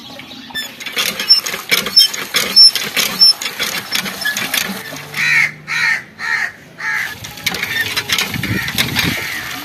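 Water pouring from a pipe and splashing into a metal colander and bowl, with sharp clatters in the first few seconds. About five seconds in, a bird caws four times in quick succession.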